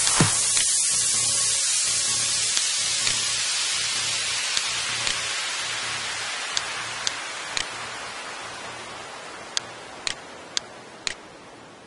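Computer mouse clicking over a steady hiss that fades away gradually; the clicks are short and sharp, several in pairs about half a second apart, like double-clicks opening folders.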